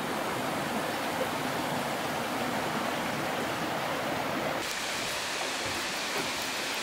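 Steady rushing of water running over the rocks of a rainforest creek. About four and a half seconds in, the rush turns brighter and more hissing.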